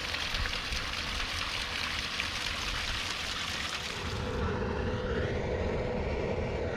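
Steady rushing noise like a mountain stream. About four seconds in it gives way to a deeper rumble with a steady hum.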